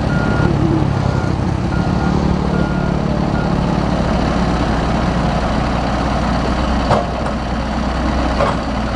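Backhoe engine running steadily under load, with its reversing alarm beeping about every two-thirds of a second until roughly a third of the way in. A couple of sharp knocks come near the end.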